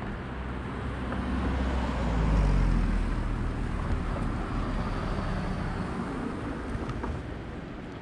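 A motor vehicle passing on the road: a low engine rumble that swells to its loudest about two to three seconds in, then fades away over steady traffic noise.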